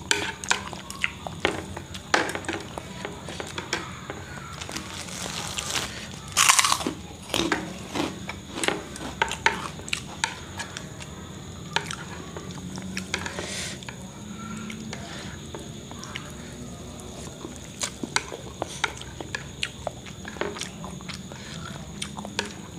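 A person chewing mouthfuls of chicken noodles and meatballs, with frequent short clicks of chopsticks against the plate. A cluster of louder eating noises comes about five to nine seconds in.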